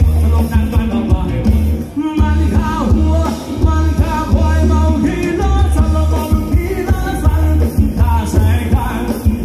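Loud amplified Thai ramwong dance music played by a live band, with a singer over a heavy, pulsing bass beat.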